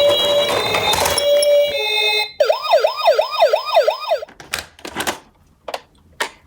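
Electronic sirens of toy ambulance minicars. First a two-tone siren steps between a higher and a lower pitch over a rattling noise. About two seconds in, a fast rising-and-falling yelp siren takes over for about two seconds, then cuts off, leaving sharp clicks and knocks of the plastic toy cars.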